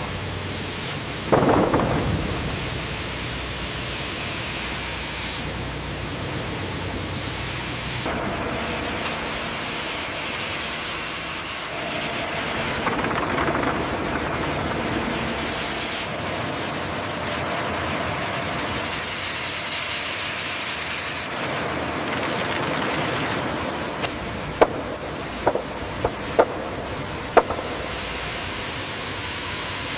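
Sawmill machinery noise, a steady hissing rush that changes character abruptly every few seconds. About five sharp knocks come near the end.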